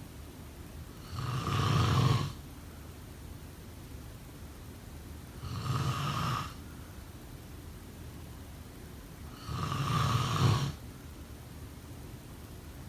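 Someone snoring in sleep: three snores, each about a second long, coming roughly every four seconds.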